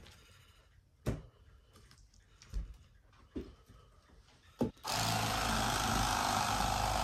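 A few soft knocks on a wooden cutting board, then, near the end, a battery-powered electric fillet knife switches on and runs steadily as it cuts into a whole fish.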